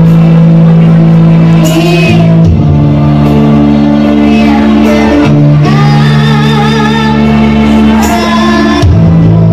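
A girl singing a slow Indonesian song into a handheld microphone over backing music, with long held notes that waver in pitch.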